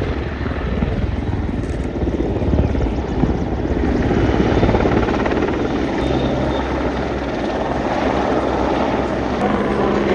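Aircraft engine noise at an air display: a steady, loud drone with a deep low hum.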